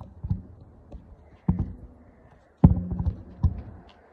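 Handling noise on a phone's microphone as it is moved and set in place: a few irregular thumps and rubs, the loudest about two and a half seconds in.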